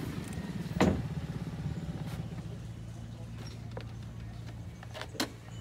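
Small boat engine running steadily with a low hum, with a sharp knock about a second in and another near the end.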